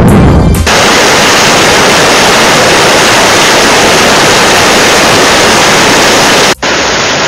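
Loud, even rushing noise of turbulent floodwater from a swollen river, starting just after a short music sting ends and breaking off for an instant near the end.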